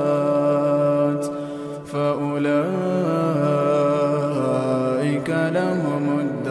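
A male reciter chanting Quranic verses in melodic tajwid style, holding long notes with ornamented turns in pitch, with a brief break for breath about two seconds in.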